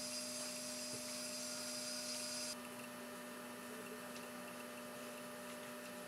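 Faint steady electrical hum over a light hiss, with a few faint ticks; the higher hiss drops away about two and a half seconds in.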